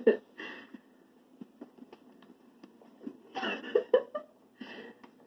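A few short, indistinct vocal sounds from the start, again around three and a half seconds and briefly near the end, with small faint knocks in between.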